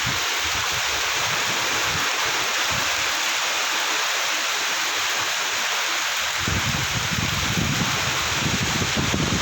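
Heavy rain pouring down in a strong windstorm, a steady dense hiss. From about two-thirds of the way in, wind gusts buffet the microphone with a low rumble.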